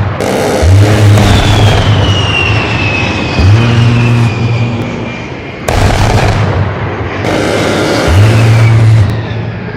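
A-10 Warthog's GAU-8 Avenger rotary cannon firing the 'brrrt' sound effect, bass boosted: three bursts of a low buzzing roar, each about a second long. A sudden heavy boom comes about halfway through, and a high jet whine falls slowly in pitch in the first half.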